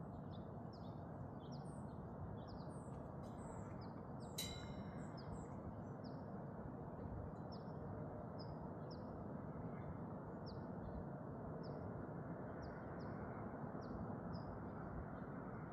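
Small birds chirping at dawn: a string of short, falling chirps, quicker in the first few seconds and sparser later, over a steady low background hiss. One sharper, louder call or click stands out about four seconds in.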